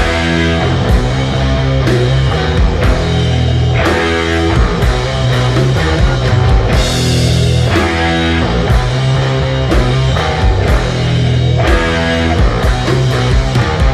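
Instrumental passage of a psychedelic doom metal song: heavy electric guitars and bass hold long low chords over drums and crashing cymbals.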